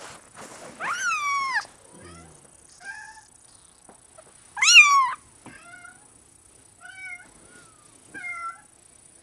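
A very young Bengal kitten mewing in a string of about six short, high-pitched calls, each rising then falling in pitch. The loudest call comes about halfway through.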